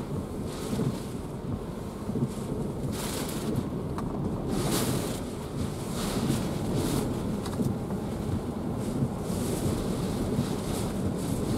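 Hurricane wind and driving rain heard from inside a vehicle's cabin: a steady low rumble with irregular gusts of hiss as rain is flung against the windshield.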